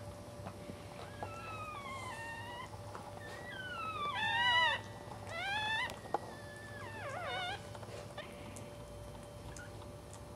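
Newborn Cairn Terrier puppy crying: about four high, squeaky whines that glide up and down in pitch, the loudest about four and a half seconds in.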